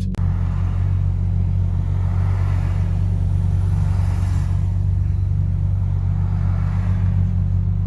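Ferrari engine running at a steady cruise with tyre and road noise, a constant low drone with no revving.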